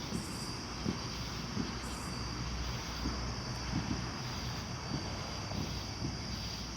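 Irregular dull bangs from far off, about one to two a second, over a steady rumbling background with a faint high steady whine.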